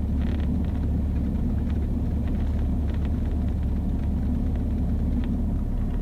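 Cessna 172's piston engine and propeller running at low power while taxiing, a steady low drone.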